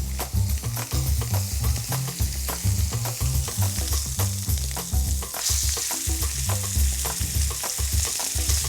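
Sea scallops searing in hot canola oil in a pan, a steady sizzle with small spits and ticks that grows brighter and louder about five and a half seconds in. Background music with a stepping bass line plays underneath.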